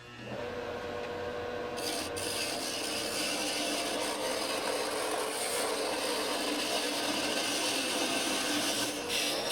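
Turning tool cutting a spinning poplar blank on a wood lathe: a steady scraping hiss of steel on wood that grows brighter about two seconds in as the cut takes hold.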